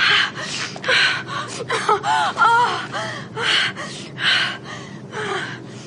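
A person's rapid, breathy gasps and moans just after a sneeze, with short rising-and-falling voiced moans about two seconds in. The sneezer puts the shuddering down to an orgasm that comes with every sneeze.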